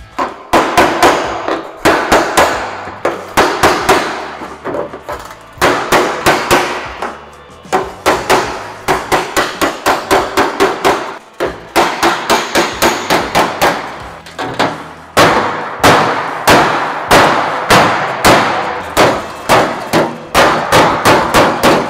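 Hammer-on-dolly work on the sheet steel of a 1940 Willys hood. A hammer strikes the panel against a steel dolly in quick runs of about four or five ringing blows a second, with short pauses between runs, straightening out dents and ripples.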